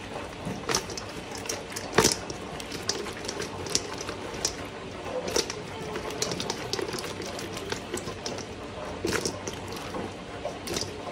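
Fried chicken wings sloshing and slapping in sauce as a stainless steel mixing bowl is swirled and shaken to coat them. Irregular sharp clicks and knocks run through it, the sharpest about two seconds in.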